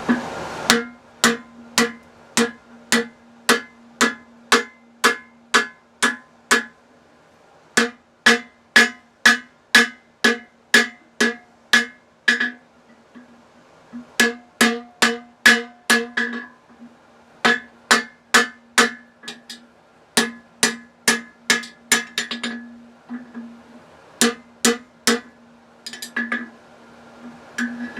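Blacksmith's hammer striking hot steel on an anvil to bend the holdfast bar: steady blows about two a second in runs of several strikes with short pauses between, each blow ringing.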